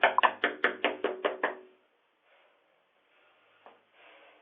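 Someone banging rapidly on a front door, about five blows a second, stopping suddenly about a second and a half in. Heard thin through a doorbell camera's microphone.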